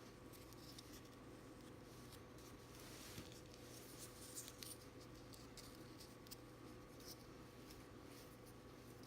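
Faint scattered clicks and scrapes of small conveyor pieces being handled and joined with O-rings, over a steady faint hum.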